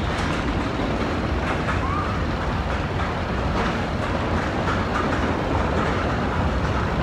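Mine train roller coaster cars rumbling and clattering along the track in a steady run, with faint clicks over the rumble.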